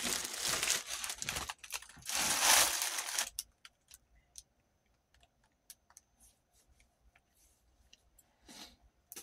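Plastic packaging crinkling and tearing as items are pulled out of it, loud for about the first three seconds, then only a few faint light clicks and a short rustle near the end.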